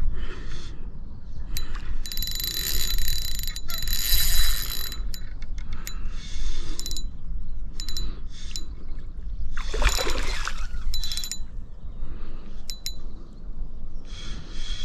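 Spinning reel worked while playing a hooked brown trout: the handle being cranked and the drag buzzing and clicking in bursts, the longest lasting about three seconds, over a low wind rumble on the microphone.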